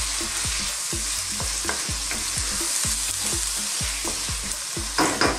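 Sardines, tomato, onion and scallions frying in oil in a hot wok with a steady sizzle, stirred with a wooden spoon. A few sharp knocks come near the end.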